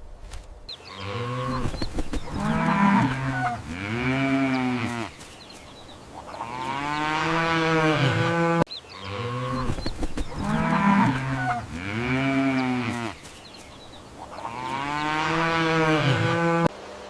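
Cow mooing: four long calls that rise and fall in pitch, the last the longest. The same run of calls is heard twice.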